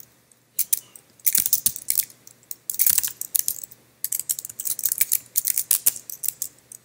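Typing on a computer keyboard: runs of quick key clicks with short pauses between them.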